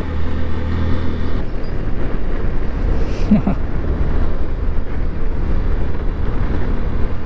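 Motorcycle on the move, its engine running steadily under wind rush on the riding microphone. About a second and a half in, the engine's steady tone drops back, leaving mostly wind and road rush.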